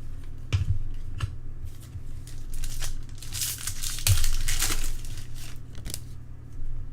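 Baseball card pack wrapper crinkling and tearing, with a few sharp taps from handling the cards. A steady low hum runs underneath.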